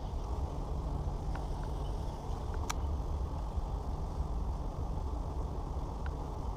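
Low, gusty rumble of wind buffeting an action-camera microphone, with one sharp click about three seconds in.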